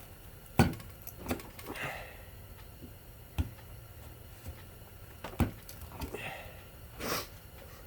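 Metal hand tools working on a ceiling fan motor's varnished copper windings: several separate sharp clicks and knocks, with a few short scraping rustles in between.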